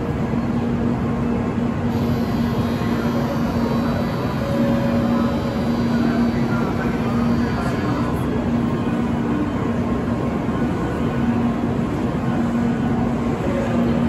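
N700 series Shinkansen train standing at the platform, its onboard equipment giving a steady hum with a low, steady tone that drops out now and then.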